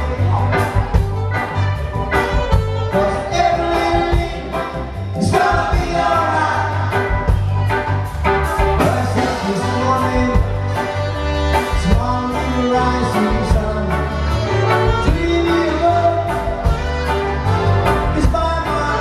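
Music with a singing voice over a steady drum beat and bass.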